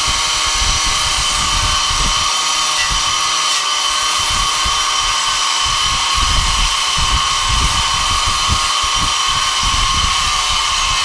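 Angle grinder with a wire brush running continuously against a rusted steel lawnmower deck, scouring off rust and flaking paint. Its motor makes a steady whine.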